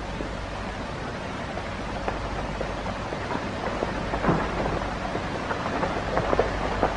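Steady hiss and crackle of an old optical film soundtrack, with scattered irregular clicks and pops that come more often in the second half.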